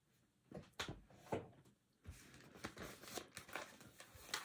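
Pages of a Bible being turned, a run of several quick, faint papery rustles and flicks.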